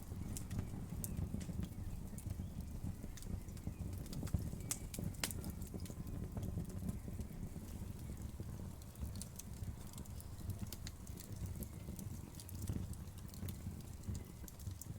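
Wood fire burning, with a steady low rumble of the flames under scattered sharp crackles and pops from the burning wood.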